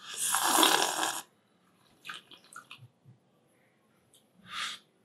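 A loud slurp of coffee drawn in with air from a ceramic cup, lasting about a second, followed by a few light clicks of a cup being set down on the table and a short softer noise near the end.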